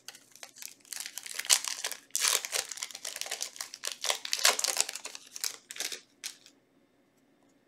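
Foil booster-pack wrapper crinkling and tearing as the pack is opened: a dense run of rustles and rips for about six seconds that then stops.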